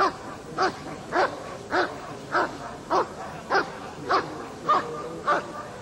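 A dog barking steadily and rhythmically, about ten loud barks evenly spaced, a little under two a second.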